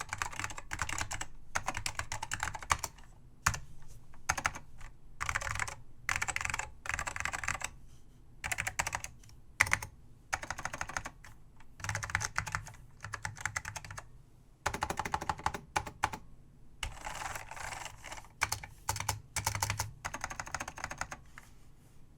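Typing on an Apple M0116 keyboard with Alps SKCM Salmon key switches: quick runs of keystrokes in bursts of a second or two, with short pauses between them. The typing stops near the end.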